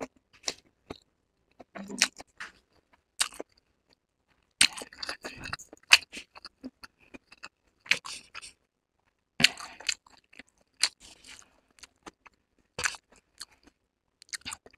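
Close-miked eating of chowmein noodles: chewing and slurping in irregular short bursts, with sharp clicks scattered between them.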